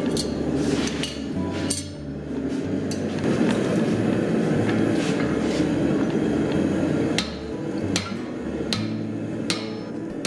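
Hand hammer striking a red-hot steel bar laid over a hardy cutter in the anvil, cutting the forged leaf free from its parent bar with controlled, spaced blows rather than driving straight through. Separate sharp strikes, several close together in the second half, over a steady background noise.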